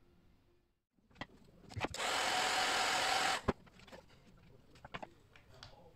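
A small power tool runs in one even burst of about a second and a half, starting about two seconds in and cutting off suddenly. Sharp clicks come before and after it, then lighter clicking of the wires being handled.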